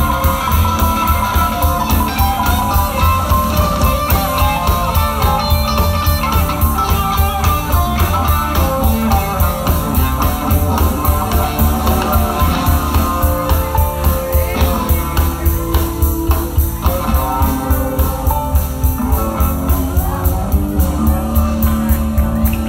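A live band playing: hollow-body electric guitar and electric bass over a steady beat.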